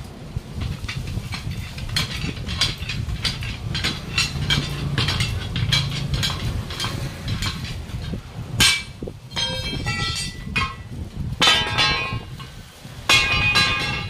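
Steel tyre lever knocking and scraping against a truck's steel wheel rim in quick clinks. From about two-thirds of the way through come several loud ringing metallic clangs as the rim's lock ring and side ring are pried off and dropped. A steady low rumble sits underneath.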